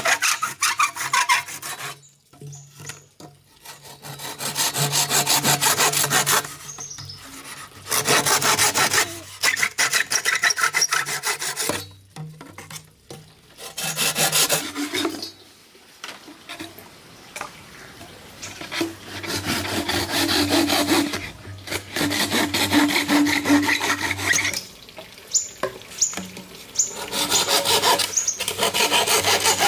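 Hand saw cutting through green bamboo, in stretches of quick back-and-forth strokes broken by short pauses between cuts.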